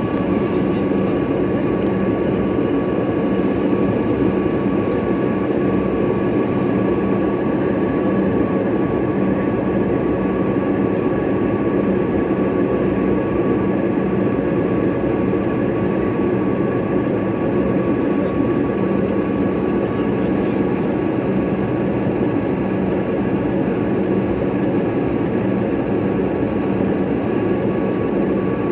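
Steady cabin noise of an airliner on approach: engine and airflow sound with a low hum and a couple of higher constant whine tones over it.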